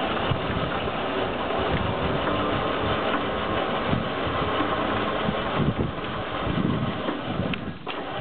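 Dodge Power Wagon pickup's engine running steadily while its built-in winch pulls a dead tree over.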